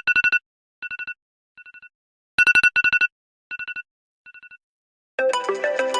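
iPhone ringtones. A fast electronic trill on a single pitch, each loud burst followed by two fainter, fading repeats, sounds twice. A little after five seconds, a different, melodic ringtone begins.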